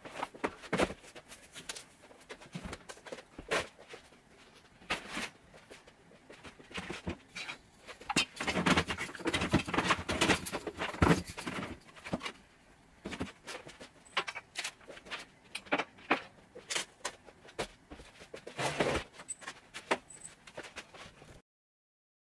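Household clutter being handled and moved: scattered knocks, clinks and rustles, busiest about eight to eleven seconds in, then cutting to silence near the end.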